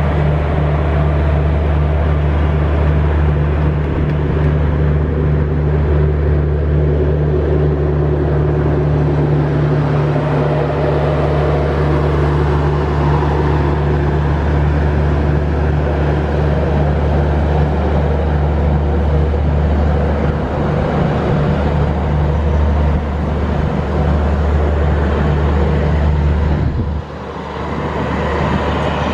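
A train running with a steady low hum and rumble, dropping suddenly about 27 seconds in.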